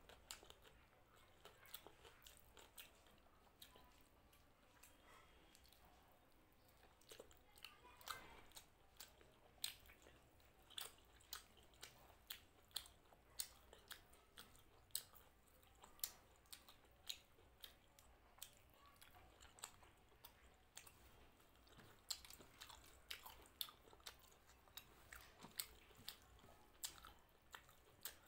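Faint close-up chewing of a mouthful of rice and mutton curry: soft, wet mouth clicks, sparse at first, then about one to two a second from around seven seconds in.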